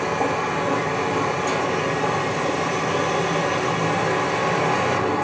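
A film soundtrack heard through cinema speakers, here a steady, even noise with no speech or distinct events.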